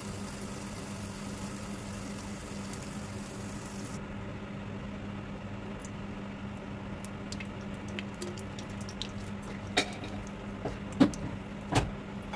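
Cooking oil poured in a thin stream into a nonstick pot on a gas stove, over a steady low hum. From about halfway, scattered small ticks as the oil starts to heat in the pot, with a few sharper clicks near the end.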